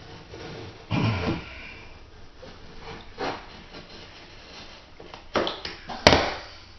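Scattered handling noises from a sheet of vinyl flooring being pushed into place and worked for a cut: a few short rustles and bumps, with a sharp click about six seconds in.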